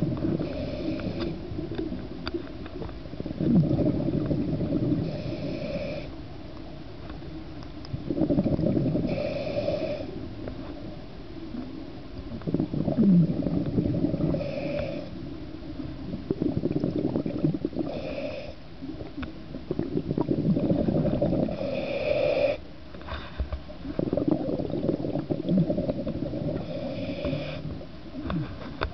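A scuba diver breathing through a regulator, heard underwater: a short hiss on each inhale, then a rumble of exhaust bubbles, repeating about every four seconds.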